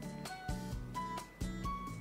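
Background music: a light melody of clear notes over chords, with a new note starting about every half second.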